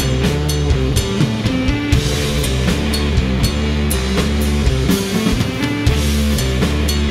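Rock band playing live, an instrumental passage: electric guitar holding and changing sustained notes over a drum kit keeping a steady beat with cymbal hits.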